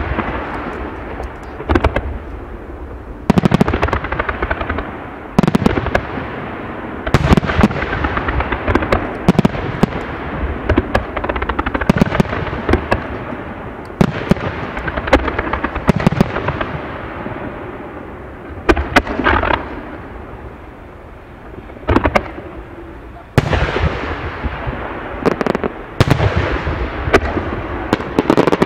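Aerial firework shells bursting in a steady barrage: sharp bangs every second or two, each trailing off in an echoing rumble, with dense crackling between them. A short lull about two-thirds of the way through ends in another loud burst.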